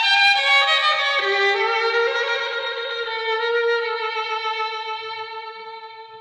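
Solo violin playing a slow melodic phrase, stepping down to a long held note about a second in that gradually fades away.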